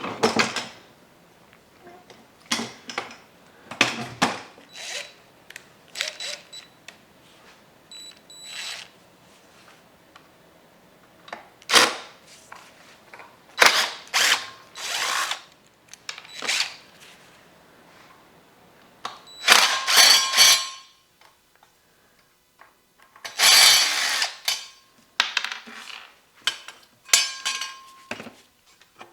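Hand-tool and handling sounds from working on a hydraulic floor jack on a workbench: scattered metal clanks and clicks, with a few longer noisy bursts about twenty and twenty-four seconds in. The jack will only lift partway, which the owner puts down to lost oil or air in the system.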